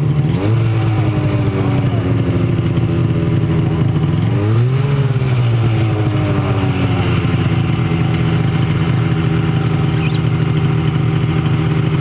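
Polaris snowmobile engine running at idle, blipped up briefly about half a second in and revved up and back down again around four to five seconds in.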